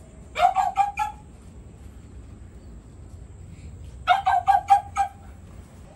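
Two bursts of quick, repeated animal calls, four or five calls each and about a second long, one near the start and one about four seconds in.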